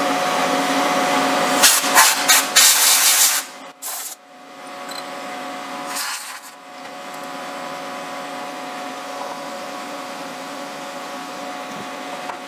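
Compressed air blasting aluminium chips off a milling vise, one long hissing blast with chips rattling, then two short puffs, over the steady hum of the CNC mill. Near the end, a couple of soft taps from a dead-blow mallet seating the aluminium block on the parallels.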